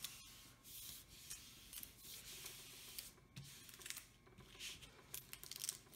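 Hands sweeping and smoothing a printed protective cover sheet over a large diamond painting canvas: faint swishing rubs in several short strokes.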